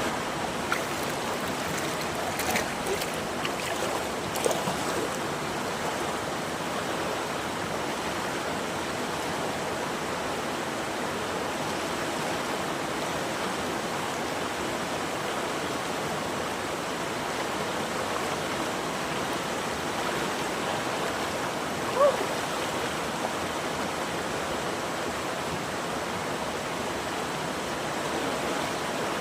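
Running water rushing steadily, as at a stream or small waterfall. A few faint clicks come in the first seconds, and there is one brief louder sound with a short rising and falling pitch about 22 seconds in.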